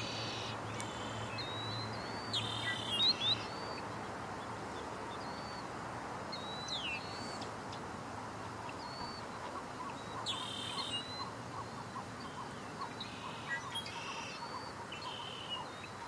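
Several small birds chirping and whistling in short bursts over a steady hiss. From about halfway through, a faint, regular ticking runs beneath them at about three or four ticks a second.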